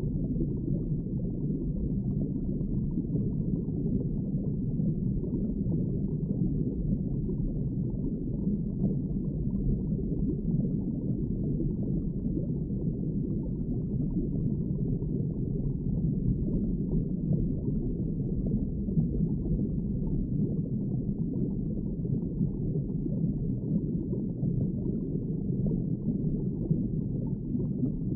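Underwater ambience: a steady, muffled low rush of water with no clear events, as heard below the surface.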